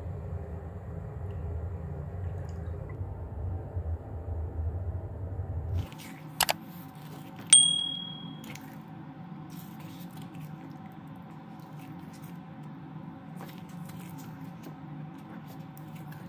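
A spatula stirring thick, cooking rice-flour and tapioca cendol batter in a saucepan, with wet squishing sounds. A little past a third of the way in comes a click, then a short, loud bell-like ding from a subscribe-button sound effect.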